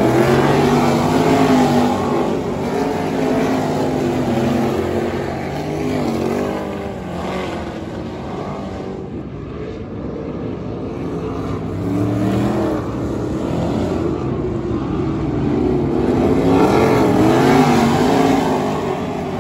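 A pack of winged dirt-track sprint cars racing around the oval, several V8 engines overlapping and rising and falling in pitch. They are loud as the cars pass close, fade about halfway through as they run down the far side, then swell again near the end.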